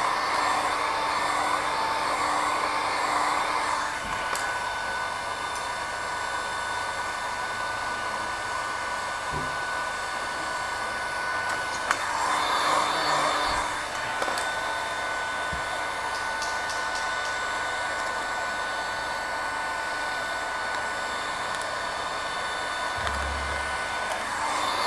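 Electric heat gun running with a steady fan whir and hiss as it heats vinyl wrap film. It swells louder near the start and again about twelve seconds in, with a single sharp click near the second swell.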